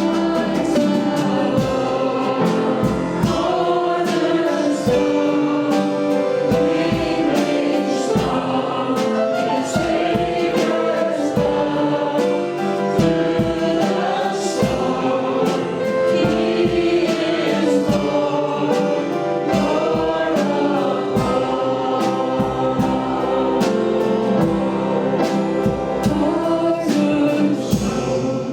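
Worship music: a choir singing a gospel-style song over instrumental backing with a steady beat.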